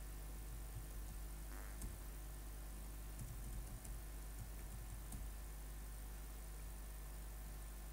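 Faint typing and clicking on a laptop keyboard and mouse, a few scattered taps, over a steady low electrical hum.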